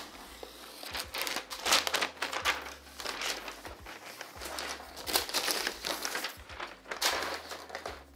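White protective wrap rustling and crackling in irregular bursts as it is pulled off a new 16-inch MacBook Pro laptop.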